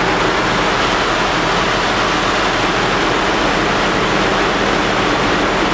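Loud, steady engine-room machinery noise aboard a container ship: an even, unchanging din spread from low to high pitches, with no single event standing out.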